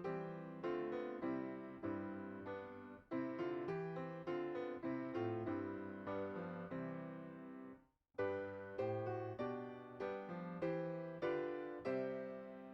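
Piano playing slow music in full chords, each chord struck and left to die away. The playing breaks off briefly about eight seconds in, then starts again.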